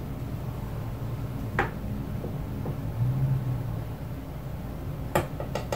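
A spoon knocking against a stainless steel measuring cup, a quick run of sharp metallic clinks starting near the end, with one single knock about a second and a half in, over a low steady hum.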